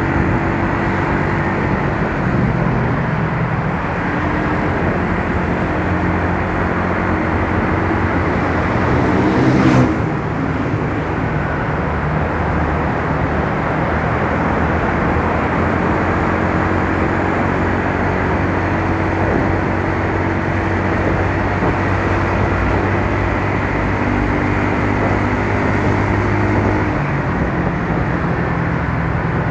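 Yamaha Mio Soul scooter's single-cylinder four-stroke engine running on the move under heavy wind and road rush, its note shifting a little with the throttle. There is a short louder rush of noise about ten seconds in.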